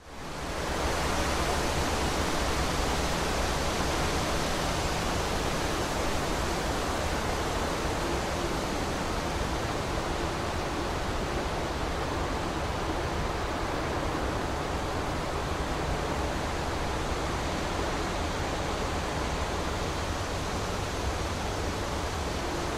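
Steady rushing noise from a DJI Phantom quadcopter's propellers and the wind across its onboard camera microphone, fading in over about a second and then holding level, with a faint low hum beneath.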